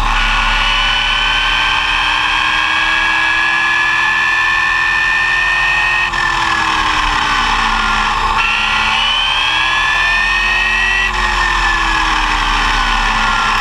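Arrma Typhon 6S RC buggy's brushless motor whining as it drives, picked up by a camera on the car: the pitch climbs slowly as it gains speed, drops about six seconds in, climbs again, and falls away near the end, over a steady rushing noise.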